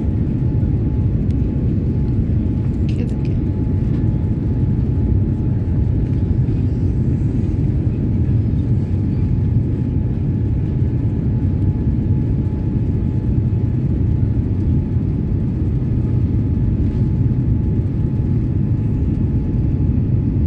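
Airliner cabin noise on final approach with the flaps extended: a loud, steady low rumble of engines and airflow, with a thin steady whine above it.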